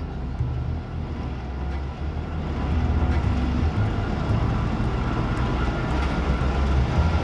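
Heavy construction machinery on an excavation site running, a steady low engine rumble.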